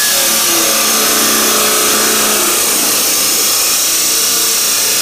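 Abrasive chop saw's cut-off wheel cutting through steel angle iron: a loud, steady grinding hiss of the cut that holds throughout.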